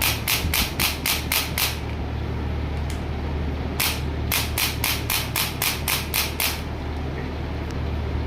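Electric chiropractic adjusting gun firing rapid clicking thrusts, about four a second, as it delivers strokes to the top of the neck. There are two runs: about seven strokes at the start, then about ten more beginning some four seconds in.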